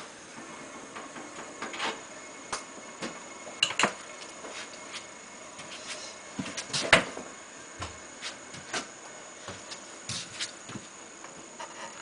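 Irregular clicks, taps and knocks of hand tools and fittings being handled during work on an air conditioner's outdoor unit, with the loudest knock about seven seconds in.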